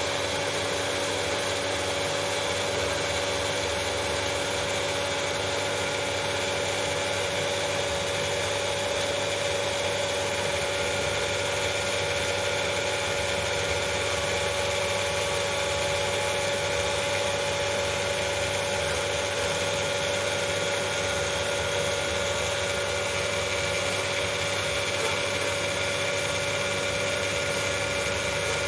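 Pool filtration pump running steadily: an even motor hum with a clear steady whine, over a constant rushing hiss.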